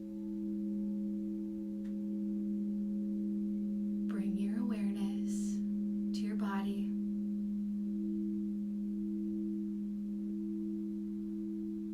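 Singing bowls holding several steady overlapping tones at an even level, without dying away. Two brief vocal sounds about four and six seconds in.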